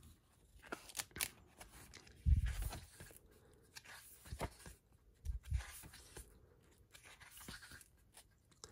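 Pages of a glossy paper booklet being turned and handled: scattered paper rustles and crackles, with two soft low thumps of handling, the louder a little over two seconds in.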